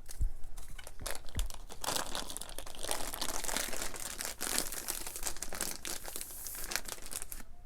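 Scissors cutting open one sealed end of a plastic package, with the plastic crinkling and crackling as it is cut and handled; two soft thumps in the first second and a half.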